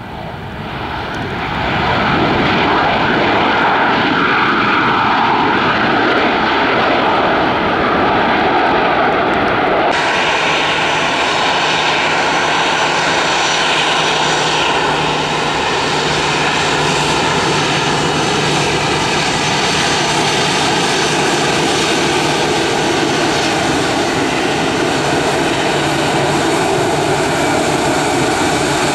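Jet engines of an Airbus A320 airliner running loud and steady, building up over the first two seconds. About ten seconds in the sound changes abruptly to a second A320's engines, steady with a low hum and a whine.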